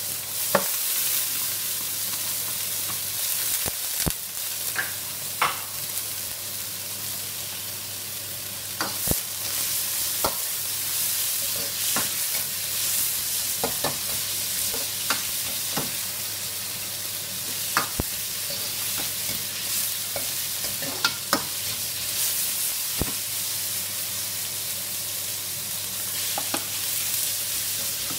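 Vegetables sizzling in hot oil in a wok while being stir-fried with a metal ladle: a steady sizzle broken by irregular sharp clinks and scrapes of the ladle against the wok.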